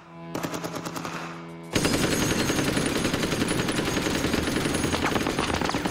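AR-style assault rifle firing fully automatic in one long continuous burst. It is quieter for the first second and a half, then loud and close.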